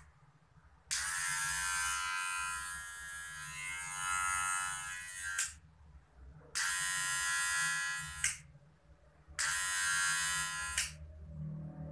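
Kemei 2600 hair clipper switched on three times: one run of about four and a half seconds, then two shorter runs of a second or two. Its motor and blade make a steady, noisy buzz, a bit rough, which the owner thinks may be because it is new and not yet oiled.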